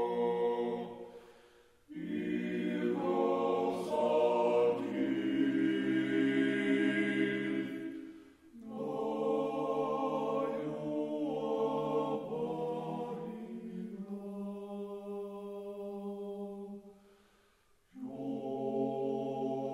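Background music: a choir singing slow chant in long, held chords, with brief pauses between phrases about two seconds in, about eight seconds in, and near the end.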